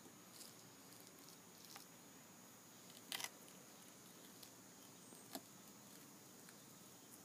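Near silence: faint background hiss with a few brief faint clicks, about three seconds in and again a little past five seconds.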